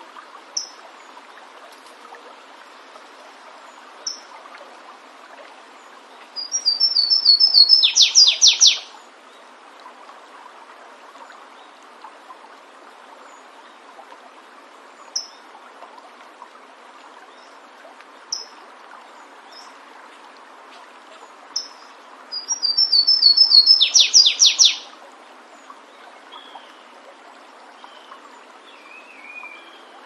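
Flavescent warbler (canário-do-mato, Myiothlypis flaveola) singing: two loud songs, each opening with a run of quick high notes and building into a fast trill, with short single call notes between them. The steady rush of a stream runs beneath.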